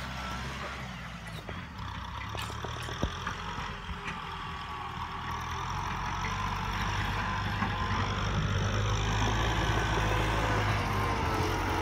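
Tractor diesel engines running steadily, growing louder in the second half.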